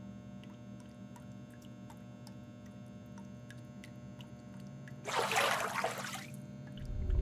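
Steady low hum with faint, irregular ticks, then about five seconds in a brief splash of bathwater lasting about a second. A low rumble rises near the end.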